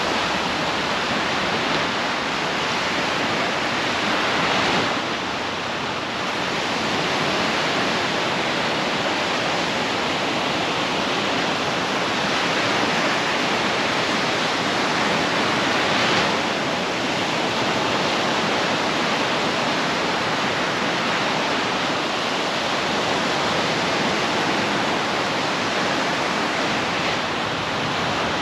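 Small surf breaking and washing up a sandy beach, a steady rush with louder swells about five and sixteen seconds in.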